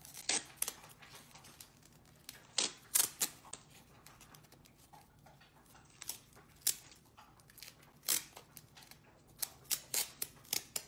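Cloth surgical tape being pulled off its roll and wound around a wooden tongue depressor: short, irregular rips and crackles, coming more thickly near the end.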